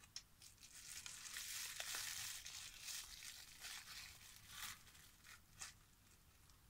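Bubble wrap crinkling and rustling as it is pulled off a small plastic tarantula vial by hand, with a few sharper crackles.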